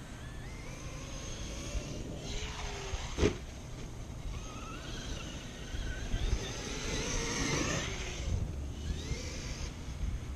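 Traxxas X-Maxx electric RC monster truck's brushless motor whining, rising and falling in pitch as it is throttled up and down. A single sharp knock about three seconds in, with a steady low rumble of wind on the microphone underneath.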